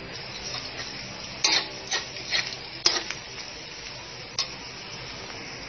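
Diced Spam, garlic and green onions sizzling in oil in a hot steel wok, with a metal spoon stirring and clinking against the pan several times in the middle of the stretch.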